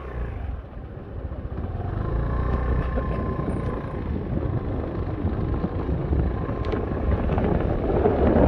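Road traffic going by on a city street: a steady rumble that grows louder towards the end, with a faint whine for a few seconds in the middle.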